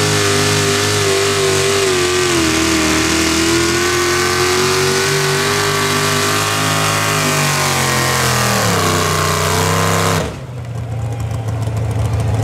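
Hot rod pulling tractor's engine running at high, steady revs under load, the revs sagging a little and then falling away near the end. About ten seconds in the sound drops off sharply, leaving a lower engine rumble.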